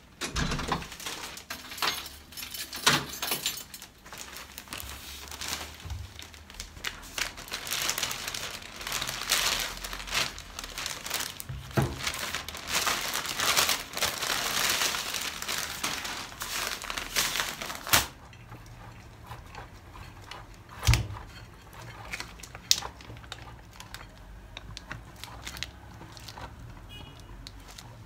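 Plastic shopping bag rustling and crinkling as it is handled and unpacked, with frequent small clicks and knocks. About two-thirds of the way through the rustling stops, leaving a quieter room with a few sharp knocks.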